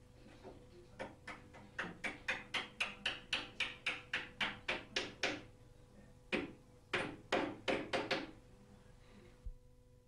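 Small cross-pein hammer tapping a metal lock fitting into a wooden door: a quick, even run of taps at about four a second, then after a pause of about a second a second shorter run of taps.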